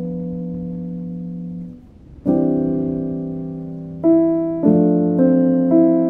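Background piano music: slow, sustained chords. One chord fades away, a new chord comes in about two seconds in, and single higher notes are added one at a time near the end.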